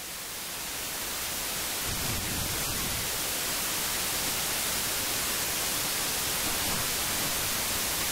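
A steady hiss like static, swelling over the first couple of seconds and then holding level.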